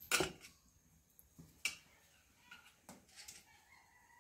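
Hand stirring a thick spiced arrowroot batter in a steel bowl: a few short, soft squelches and scrapes, the first the loudest.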